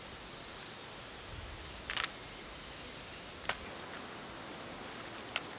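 Quiet steady hiss with three brief handling noises, light rustles and clicks from cord being lashed around wooden poles, about two, three and a half and five seconds in; the first is the loudest.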